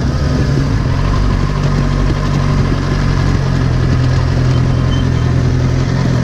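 Sport motorcycle engine running steadily at low revs as the bike rolls slowly forward, with no revving.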